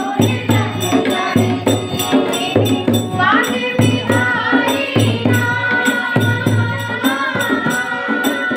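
A group of women singing a Hindi devotional bhajan to Krishna together, with pitch glides, over a steady beat of hand claps.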